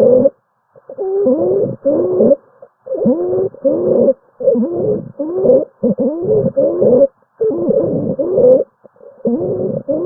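Stethoscope recording of rapid breathing with abnormal musical breath sounds: each breath in and out carries a low, pitched sound that bends in pitch, in short pairs with silent gaps between, about one breath cycle every one and a half to two seconds.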